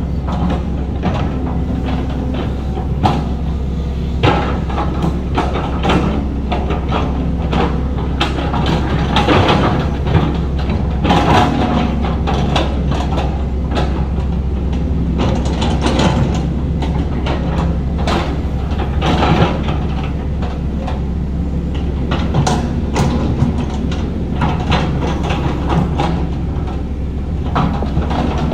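Heavy earthmoving machinery at work: a diesel engine running steadily under frequent irregular metallic clanks and knocks, typical of excavator tracks and bucket working soil.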